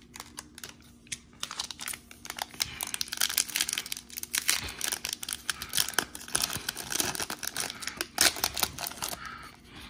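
Foil wrapper of a Donruss basketball card pack crinkling and tearing as it is handled and ripped open by hand: a dense run of crackles.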